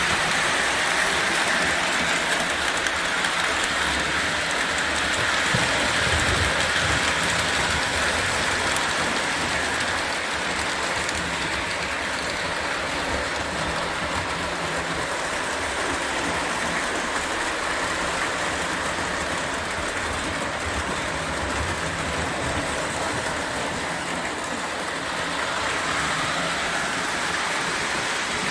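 O gauge toy electric train running steadily on the layout track, its motor and wheels giving a continuous whirring rumble that eases off slightly partway through.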